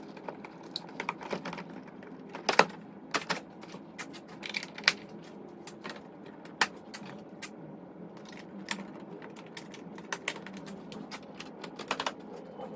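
Irregular clicks and sharp knocks from hand work on a truck's door panel and handle hardware being reassembled, the loudest a few seconds in.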